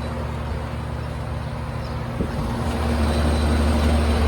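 1988 Lennox HS18 central air conditioner condensing unit running: a steady low hum from the compressor and fan, a little louder in the second half.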